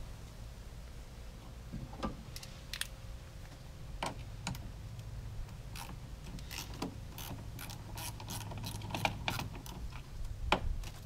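Hand ratchet and socket clicking in short runs while loosening the battery cable's terminal nut, with scattered metal clinks of tool on terminal; the quickest run of clicks comes in the second half, and a louder single clink near the end.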